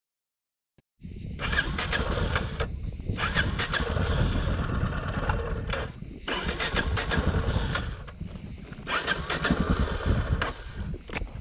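Yamaha Ténéré motorcycle engine running, starting abruptly about a second in and rising and falling in surges every two to three seconds.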